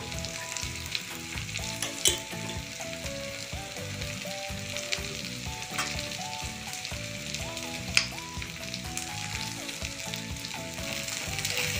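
Onion and capsicum sizzling steadily in hot oil in a wok, with green chilli sauce just added. A few sharp clicks come about two seconds in and again near six and eight seconds.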